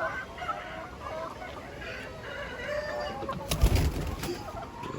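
Flock of laying hens clucking and calling, with a brief clatter of knocks about three and a half seconds in.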